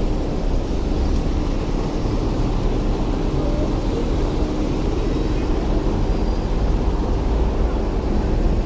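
Urban street traffic: a steady low rumble of vehicles running past.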